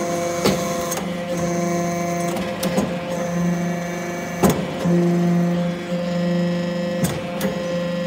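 Hydraulic metal-chip briquetting press running: a steady machine hum whose tone shifts in steps as the press works through its cycle, with about four sharp knocks as briquettes are pressed and pushed out.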